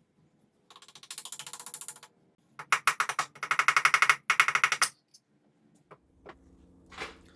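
A ratchet clicking in four quick runs, the first about a second in, the later ones louder.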